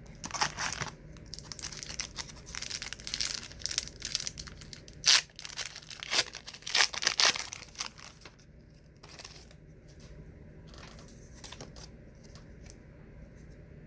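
A trading card pack wrapper being torn open and crinkled: irregular bursts of tearing and crackling for about eight seconds, the sharpest rip about five seconds in, then only a few faint rustles.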